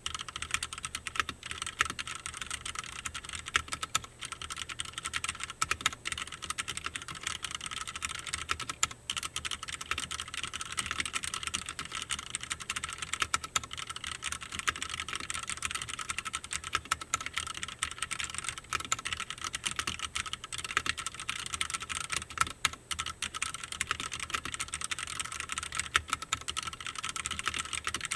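Cherry MX Board 3.0S TKL mechanical keyboard with Cherry MX Red linear switches being typed on fast and without pause: a dense, continuous stream of keystrokes.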